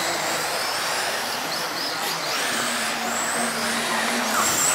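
Several radio-controlled off-road model cars racing around a track: high-pitched motor whines rising and falling over a steady hiss.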